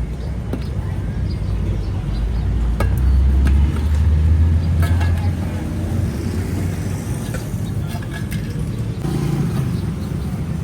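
Street traffic: a motor vehicle engine rumbles past close by, loudest about three to five seconds in, with scattered clicks and clatter.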